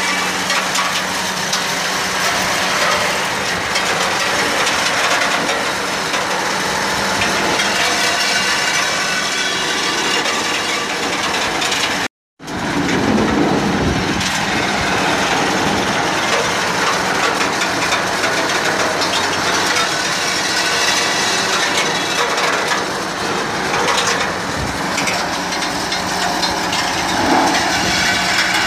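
SP 07 tractor-drawn rosehip harvester working through rosehip bushes: a steady, dense mechanical clatter and rattle as stems feed through its picking mechanism, with the tractor's engine running underneath. The sound cuts out completely for a moment about twelve seconds in.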